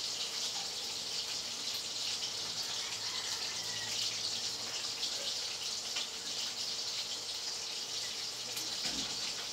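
Steady hissing background noise with a faint low hum underneath, with no distinct events.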